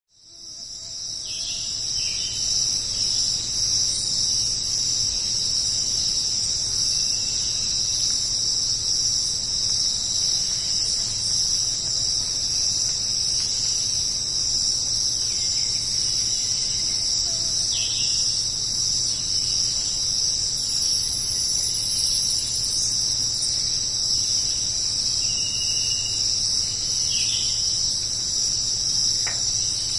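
A steady, high-pitched insect chorus that fades in over the first couple of seconds and runs on without a break.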